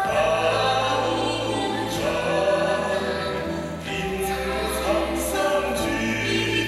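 Dance music with a choir singing held, sustained notes over a steady bass line, and a few sharp percussion hits about two and four seconds in.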